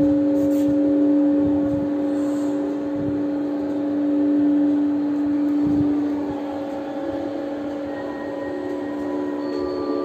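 A steady hum of held tones over a low rumble. About seven seconds in, the lower tones fade and higher tones come in.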